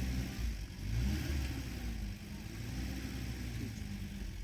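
A vehicle engine running steadily at low pitch, with faint voices in the background.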